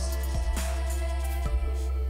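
Background music: an instrumental track with deep sustained bass, layered pitched notes and a couple of drum hits.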